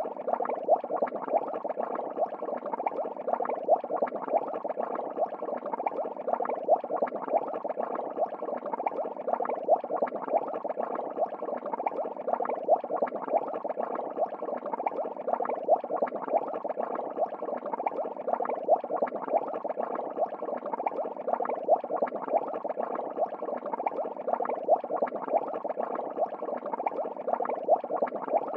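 Steady bubbling, fizzing water noise of aquarium aeration, with a slight swell repeating about every three seconds.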